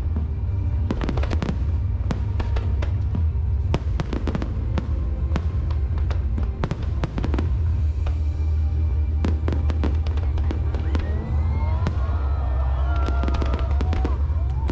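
Aerial fireworks display: a rapid, continuous run of sharp cracks and bangs from bursting shells over a deep rumble.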